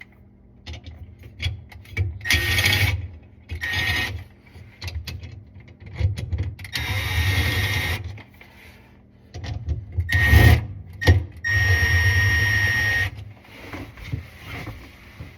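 Power drill run in about five short bursts, the longest about a second and a half, each with a steady high whine, and clicks and knocks of parts being handled in between.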